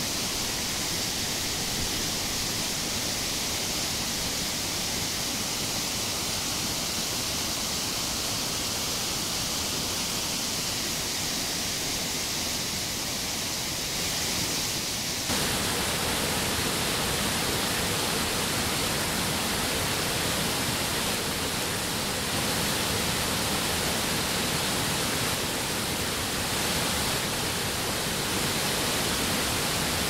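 Mountain stream rushing over rocks in a steady roar of water. About halfway through it becomes louder and fuller as the sound switches to close-up rapids.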